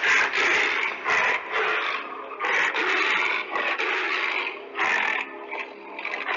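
Cavalier King Charles Spaniel puppy gnawing on a chew, a run of irregular scraping, crunching bursts broken by short pauses.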